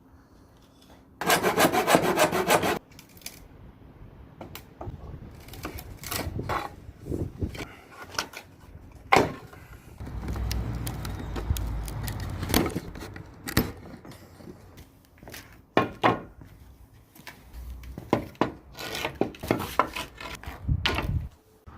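Pallet wood being worked by hand: a loud run of fast sawing strokes a little over a second in, then scattered knocks, clicks and scraping as wooden pieces are handled.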